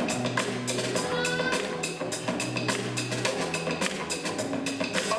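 Street-dance music with a busy drum beat over a bass line.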